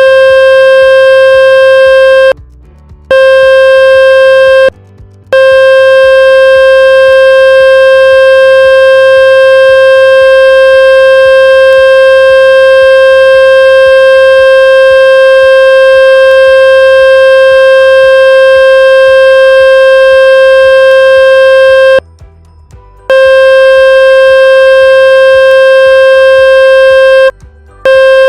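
Loud, steady electronic buzzing tone played to drive water and dust out of a phone speaker. It holds one pitch with many overtones and drops out briefly four times, twice in the first few seconds and twice near the end.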